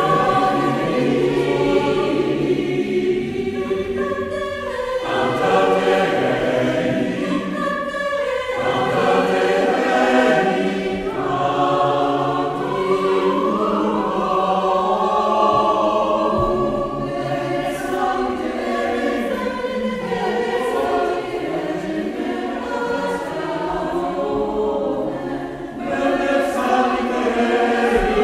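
Choir singing a cappella, unaccompanied, phrase after phrase, with a brief break about two seconds before the end before the next phrase begins.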